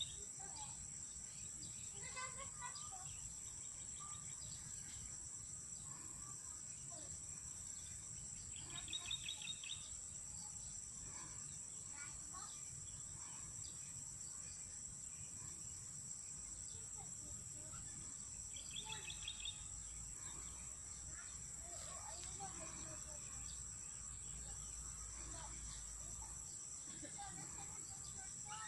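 Steady high insect drone of crickets or cicadas in a crop field. A short, rapid chirping trill comes three times, about ten seconds apart, with faint scattered bird calls and a low rumble of wind or handling on the phone's microphone.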